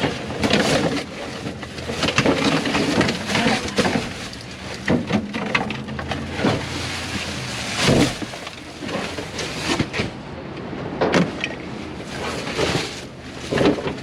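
Handling and rummaging: an irregular string of knocks, clatters and rustles, the loudest knock about halfway through, over a steady low hum.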